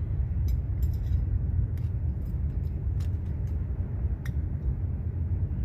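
A few light metallic clicks and clinks as small metal hub parts are handled and fitted, one of them ringing briefly about a second in, over a steady low rumble.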